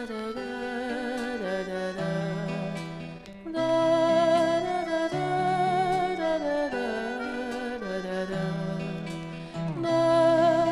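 Orchestral instrumental interlude of a 1965 German Schlager single: a held, slightly wavering melody over a stepping bass line, with no singing.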